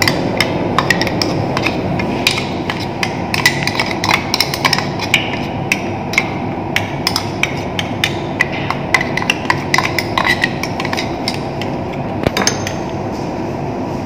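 A metal spoon knocking and scraping against the inside of a stainless steel mixer-grinder jar, scooping out thick pesto: many quick, irregular clicks and taps.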